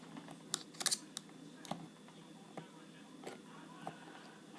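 Small screwdriver levering at a Viro lock cylinder, giving scattered light metallic clicks and taps, about seven, most of them in the first two seconds.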